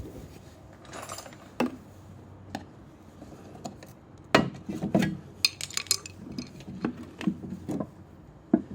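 Metal tools and parts clinking and knocking together in a series of irregular sharp clicks, loudest a little over four seconds in and again near the end.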